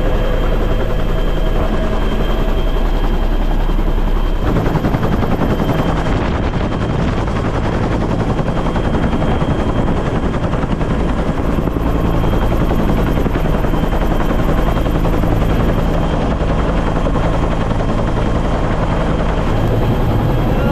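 Helicopter's rotor and turbine engine running steadily, heard from inside the cabin in flight.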